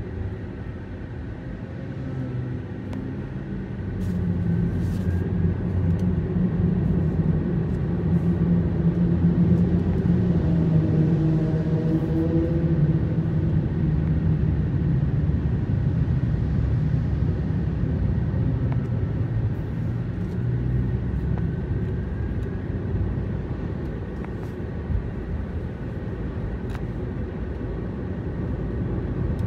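Car driving, engine running with road noise. The engine note grows louder about four seconds in, as if pulling harder, and settles back down after about twenty seconds.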